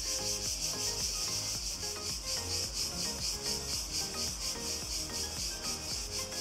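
A chorus of cicadas at dusk, making a steady pulsing buzz, with soft background music underneath.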